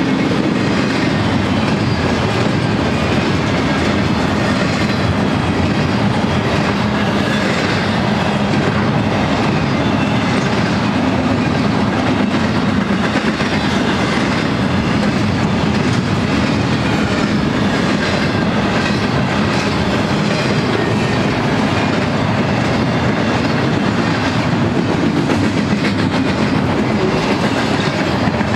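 Double-stack intermodal container train's well cars rolling past close by: a loud, steady noise of steel wheels running on the rails.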